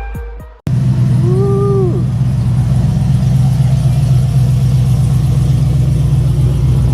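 GM V8 with a PCMofNC Attitude V3 performance camshaft idling steadily with a choppy lope, the cam's chop showing through the exhaust. A short rising-then-falling tone sounds over it about a second in.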